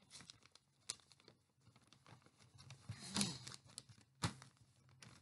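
Faint rustling and crinkling of a sheet of paper being folded and creased by hand, with a few sharp clicks and a louder rustle about three seconds in.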